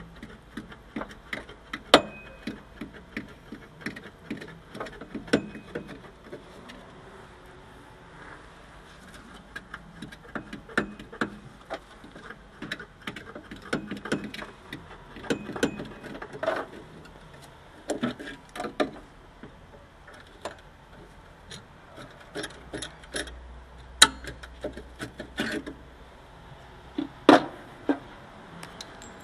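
Irregular metallic clicks, taps and knocks of hand tools and metal parts during repair of a VW T2 bus's broken accelerator pedal hinge. A few sharper knocks come about two seconds in and again near the end.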